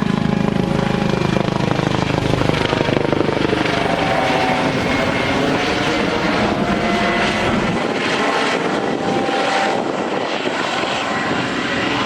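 Coast Guard helicopter flying: rapid rotor chop over a turbine whine. The deepest part of the rumble drops away about eight seconds in.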